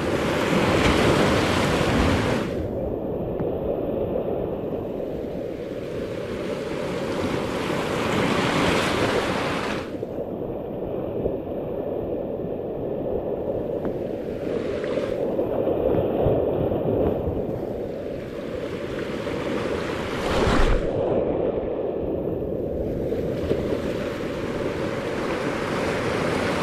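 Strong ocean surf breaking and washing over shoreline rocks, swelling loud every several seconds.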